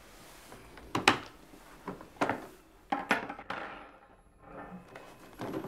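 Latches and door of a plastic pet carrier being worked open by hand: several sharp plastic clicks and knocks, a second or so apart.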